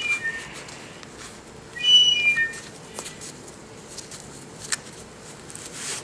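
Handling of a fabric bag and nylon seatbelt strap: faint rustling and a few light clicks as the strap is worked through a padded shoulder pad. About two seconds in, a few short high chirps are the loudest sound.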